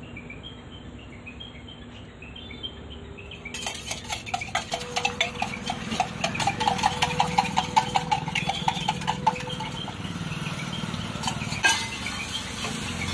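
Eggs beaten with a spoon in a steel tumbler: fast, rhythmic metal clinking that starts a few seconds in and runs for about six seconds. Near the end a metal spatula scrapes the eggs across a hot flat iron griddle, with one sharp clack.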